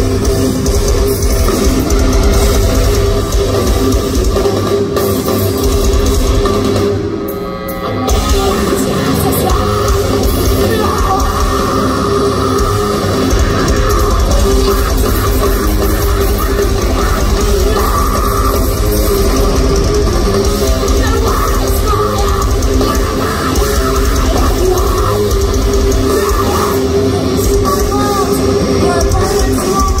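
A live metalcore band playing loud, with distorted guitars, bass and a pounding drum kit under a woman's vocals. There is a brief break in the music about seven seconds in.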